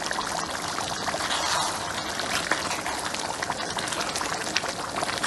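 A pot of tomato stew with rice in it boiling hard, bubbling and crackling steadily while a spatula stirs through it.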